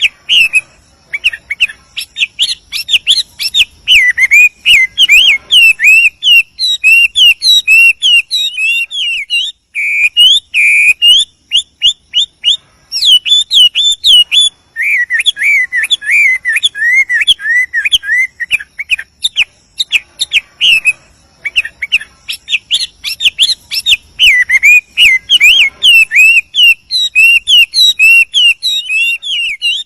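Chinese hwamei singing a long, varied song of rapid, sweeping whistled notes, running almost without a break, with a few short pauses.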